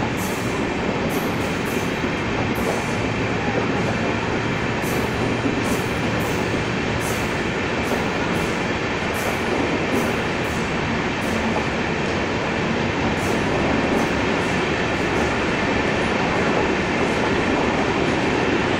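Air-conditioned LHB passenger coaches rolling slowly past on the track as the train leaves the station: a steady rumble of wheels on rail with irregular clicks as the wheels cross rail joints, more frequent in the first half. The rumble grows a little louder near the end as the last coach goes by.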